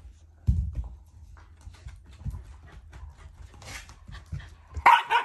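A black Labrador and a Shiba Inu moving about on a mat-covered floor: a heavy thump about half a second in as the Labrador comes down off a floor cushion, then scattered paw steps and claw clicks. A short, sharp, loud sound comes near the end.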